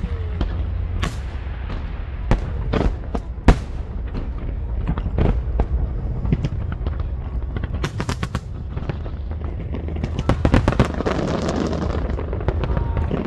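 Fireworks going off: scattered sharp bangs and crackles over a steady low rumble, with a quick run of pops about eight seconds in and another around ten to eleven seconds. A crowd's noise swells near the end.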